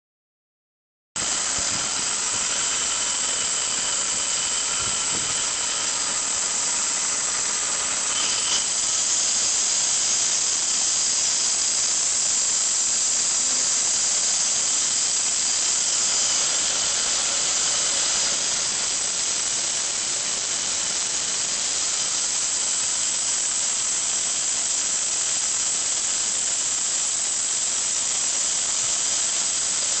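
Engine bay of a 1994 Chevrolet Beretta with the engine running, giving off a steady, high-pitched squealing hiss with faint whistling tones over it. This is a new noise that appeared after a radiator replacement.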